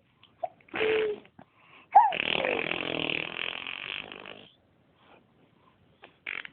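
Baby making raspy, snore-like throaty vocal noises: a short one about a second in, then a longer one lasting about two and a half seconds that starts with a falling squeal.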